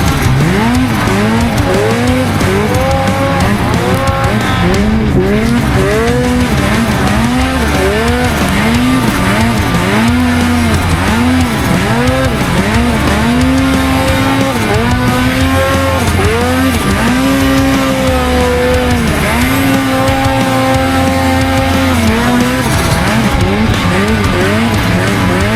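Snowmobile engine revving up and down again and again, its pitch rising and falling roughly once a second, with a few longer stretches of held throttle in the second half.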